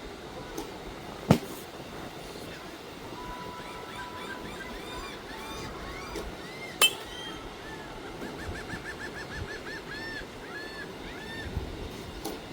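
Two sharp knocks in a batting cage, about a second in and near the middle, the second with a short metallic ring. Between them, birds chirp in quick repeated calls.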